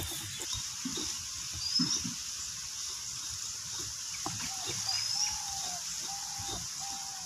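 Stone roller rolled back and forth over a stone grinding slab (ammi kal), grinding turmeric into a wet paste with an uneven low scraping rumble. A few bird chirps and a steady high hiss sit behind it.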